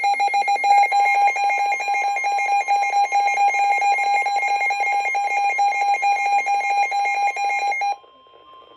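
Electronic emergency alert tone announcing an incoming severe weather warning: a loud, rapidly pulsing high tone that cuts off sharply about eight seconds in, leaving a fainter steady tone behind.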